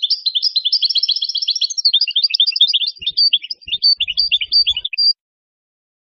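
European goldfinch singing: a rapid run of high, twittering chirps and trills, thinning to spaced notes with a last high note about five seconds in, then stopping abruptly.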